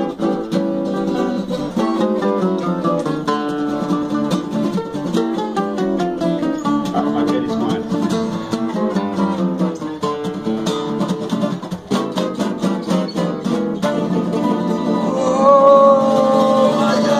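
Fretless guitar playing a fast gypsy jazz tune: quick picked runs with notes that slide in pitch, then a longer held note near the end.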